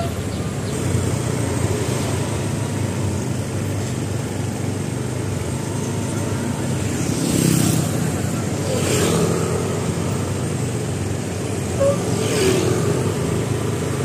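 Steady engine and road noise of traffic on the move, with a few louder swells as vehicles pass, around the middle and again near the end.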